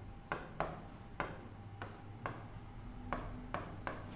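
Pen tapping and clicking against a digital writing board while words are written: about ten sharp, irregular taps over a faint low hum.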